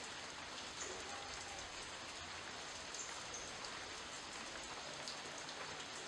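Steady rain falling on the leaves of a garden shrub, an even hiss with many small drop ticks scattered through it.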